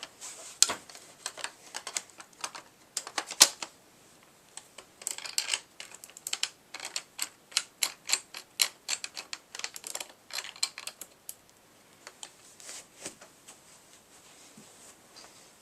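Metal clicks and clacks from a Mossberg 500 pump shotgun being handled as its barrel is refitted over the magazine tube and fastened. There is a quick run of clicks, about three a second, in the middle, and it thins out near the end.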